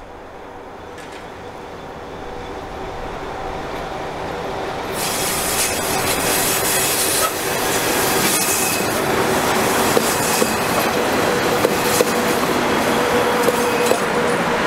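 Freight train hauled by two DB class 151 electric locomotives approaching and passing close by: a rumble of wheels on rail that swells and turns loud about five seconds in. A thin, steady squeal of wheels runs through it, along with several sharp clacks over the rail joints as the wagons roll past.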